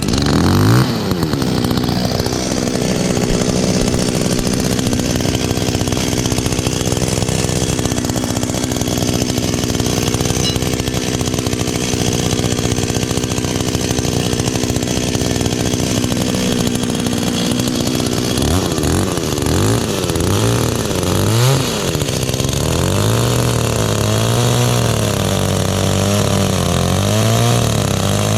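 Kyoritsu two-stroke chainsaw running at high speed. In the second half its engine speed swings up and down over and over, about once a second near the end.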